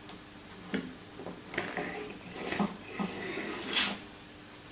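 Stiff illustration card being slid out of a wooden kamishibai stage: a few light knocks and rustles, with the loudest, a short paper swish, near the end.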